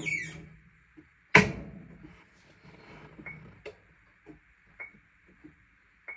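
Whirlpool WTW5105HW top-load washer: the high squeal with a falling pitch dies away at the very start, then a single sharp click comes about a second and a half in, followed by a few faint ticks over a faint steady hiss.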